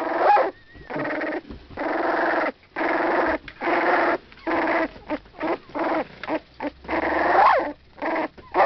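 Ten-day-old Mudi puppy whining in a long run of short calls, with a longer whine near the end that slides in pitch.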